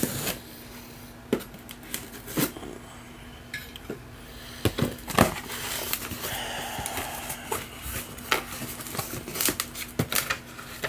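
A cardboard box being cut open with a blade and handled: scattered clicks and knocks, the loudest about five seconds in, with a stretch of scraping from about six seconds.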